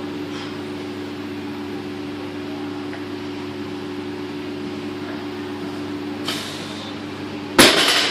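Steady low mechanical hum, with a brief hiss about six seconds in and a loud, sudden burst of noise near the end.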